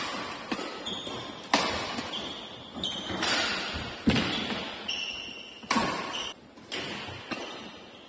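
Badminton rally: sharp racket-on-shuttlecock hits, about one or two a second, ringing in a large hall, with short high squeaks of court shoes on the floor between the hits.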